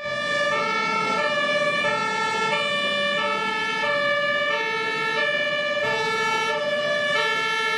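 Two-tone emergency siren of an airport fire truck, switching steadily between a low and a high note about every half second.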